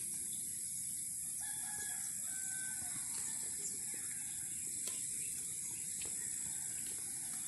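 Outdoor ambience: a steady high-pitched hiss, with a rooster crowing in the distance about one and a half to three seconds in.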